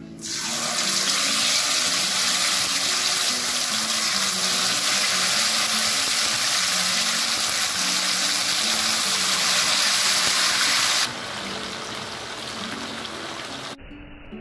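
Marinated chicken pieces sizzling loudly as they go into hot oil and deep-fry, a steady frying hiss. The sizzle drops a little about eleven seconds in and turns duller near the end.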